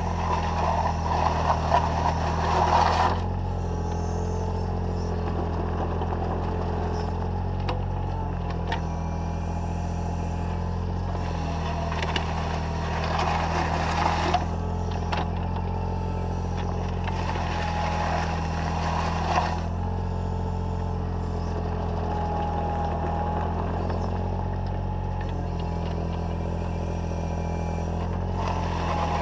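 Takeuchi TB014 mini excavator's diesel engine running steadily with a hydraulic whine, while the bucket scrapes and drags gravel and mud along the ground in a few bursts of crunching, at the start, about halfway through and near the end.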